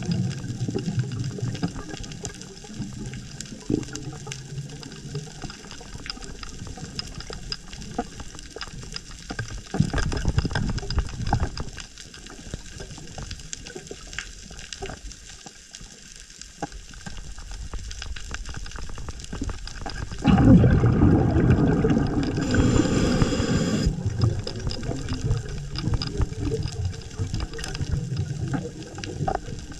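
Underwater sound from a diver's camera: rumbling surges of bubbles from the diver's scuba exhalations, about twice, over a constant fine crackle and the knocks of handling gear.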